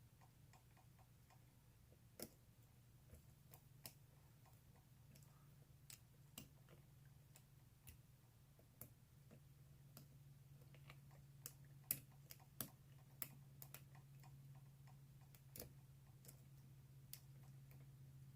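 Faint, irregular clicks of a lock pick and tension wrench working the pins of a brass padlock during picking, with a few louder clicks past the middle, over a steady low hum.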